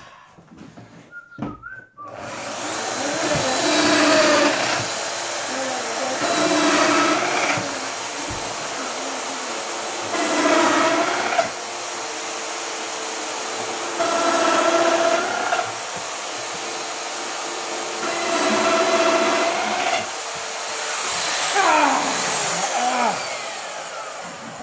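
Workshop vacuum switched on about two seconds in, then running steadily with a rushing hiss. A whistling tone swells and fades about every three to four seconds.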